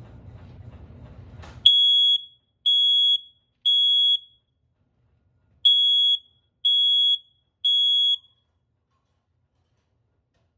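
First Alert combination smoke and CO alarm sounding under test: two rounds of three loud, steady, high-pitched beeps, each round followed by a pause. This is the three-beep pattern of a smoke-alarm signal. It falls silent after the sixth beep.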